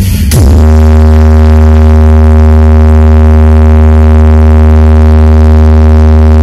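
DJ sound system playing a deep, heavily distorted synthesized bass tone at full volume. The tone comes in about half a second in after a falling pitch sweep, then holds at one steady pitch as a sound-check bass drone.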